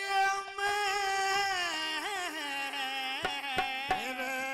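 A male voice singing one long, drawn-out phrase of a Haryanvi ragni, the held notes bending and wavering in pitch, with a few sharp percussion strokes in the second half.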